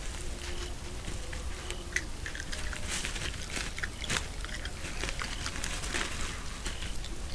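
Irregular crunching and crackling of an animal chewing and rummaging among bones and scraps, many short sharp clicks close to the microphone.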